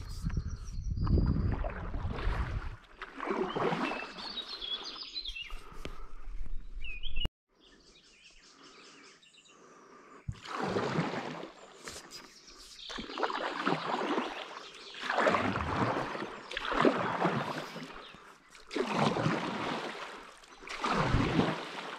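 Paddle strokes of a stand-up paddleboard in calm river water, a swish and splash about every two seconds, with birds singing. The sound drops away suddenly about seven seconds in, and the strokes start again a few seconds later.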